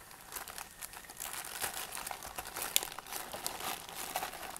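Thin clear plastic bag crinkling and crackling in quick irregular bursts as hands work a figure's display stand out of it. The sharpest crackle comes a little under three seconds in.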